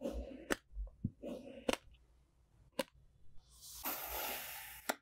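A thin metal blade cutting into molded kinetic sand: short gritty crunches and several sharp clicks as the blade presses in. A longer grainy crunch follows about three and a half seconds in, the loudest sound, and ends in a click.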